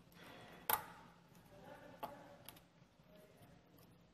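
Light clicks and taps of small metal nuts and bus bars being set by hand onto plastic battery cell caps. The sharpest click comes about two-thirds of a second in, with others near two seconds.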